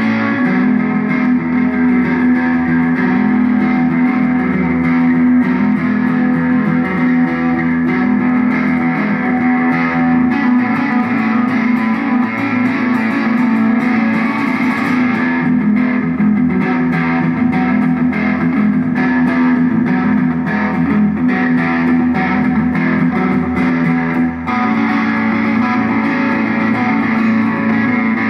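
Electric guitar music played through effects with distortion, over a steady low held note.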